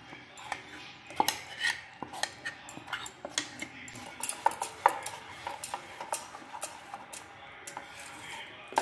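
A metal spoon stirring thick batter in a stainless steel bowl, with irregular clinks and scrapes of metal on metal.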